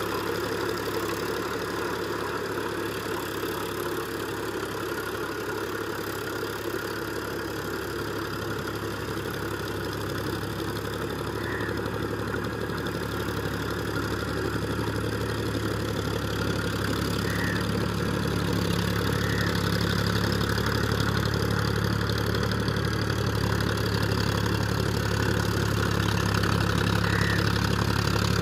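Powertrac Euro 50 tractor's three-cylinder diesel engine running steadily under load at about 1500 rpm in third gear low, driving a 6-foot rotavator churning through flooded, muddy ground. The engine grows louder in the second half as the tractor comes closer.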